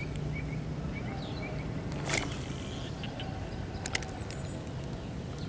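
Outdoor ambience with a steady high-pitched insect drone and a few short chirps in the first second. Close handling noise from fishing gear sits over it: a sharp swish about two seconds in and a couple of clicks near four seconds.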